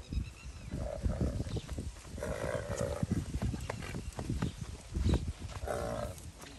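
Stallion calling three times, low and pulsing: a short call about a second in, a longer one a couple of seconds later and another near the end. Its hooves thud on the dirt throughout as it rears and prances, worked up by the mare brought for covering.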